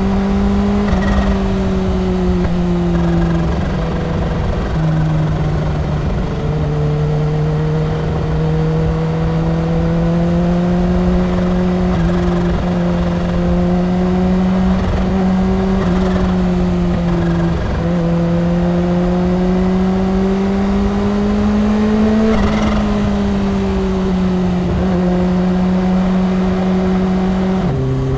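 Kawasaki Ninja H2's supercharged inline-four engine running at steady highway speed, its pitch slowly rising and easing off as the throttle changes. There are a few short dips in pitch, and near the end the pitch drops sharply.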